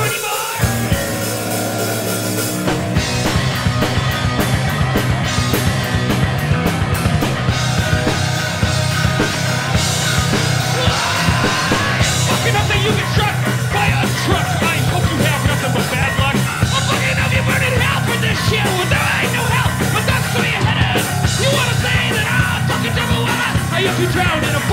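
Live punk band playing loudly in a small room: electric guitar, drums and yelled vocals.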